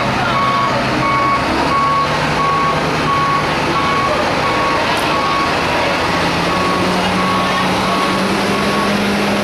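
A vehicle's reversing alarm beeping steadily, about three beeps every two seconds, over a heavy engine running. The engine's pitch steps up about six seconds in.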